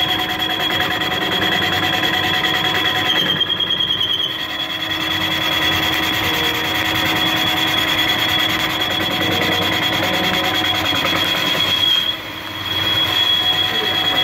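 Mazak CNC lathe turning a spinning crankshaft, the tool in the cut giving a steady high-pitched squeal over the machine's running noise. The squeal falters briefly about four seconds in and cuts out for a moment about twelve seconds in.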